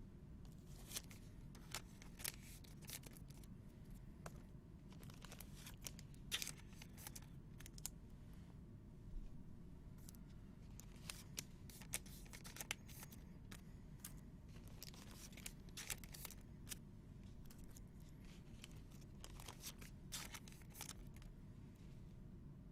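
Faint rustling, crinkling and soft clicks of trading card packs being torn open and the cards inside handled.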